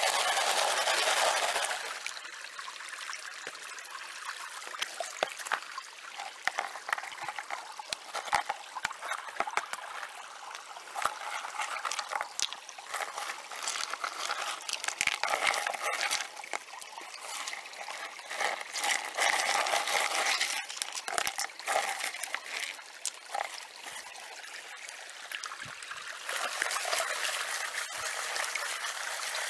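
Small creek running and trickling over rocks. Stones click and knock as they are picked by hand out of a plastic gold pan, and near the end the water sloshes louder as the pan is swirled in the current.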